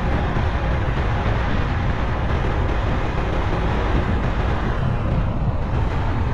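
Steady vehicle and road noise, a continuous low rumble without breaks.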